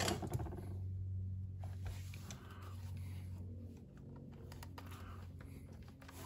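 Scattered light clicks and taps of small plastic and metal parts being handled while fitting a sway bar to an RC truck's rear suspension, over a steady low hum.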